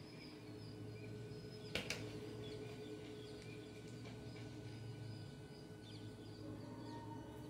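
Quiet background: a steady low hum with faint bird chirps scattered throughout, and two sharp clicks close together a little under two seconds in.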